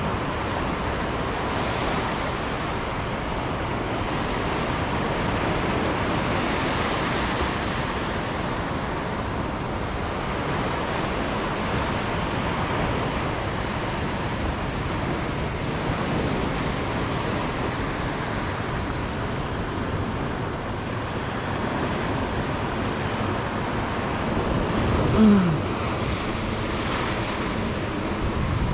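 Small surf waves washing up and draining off a sandy beach, a steady rush of foam and water, with wind buffeting the microphone. About three-quarters of the way through, a short sound drops in pitch and is the loudest moment.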